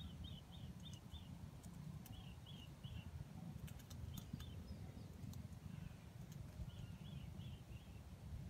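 Faint small-bird calls: short high notes in quick runs of three or four, repeated several times over a low steady rumble, with a few sharp clicks around the middle.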